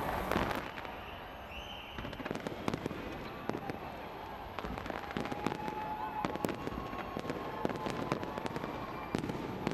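Fireworks display going off, a quick run of sharp bangs and crackles over a steady background din.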